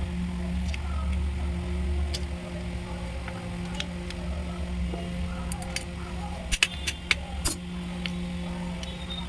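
Scattered sharp metallic clinks and taps of tools and alternator parts being handled, loudest in a quick cluster about two-thirds of the way in, over a steady low electrical hum.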